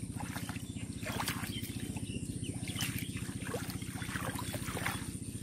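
A small engine runs steadily in the background with a fast, even low throb. Short splashes and sloshing of shallow water from wading feet and hands break in now and then.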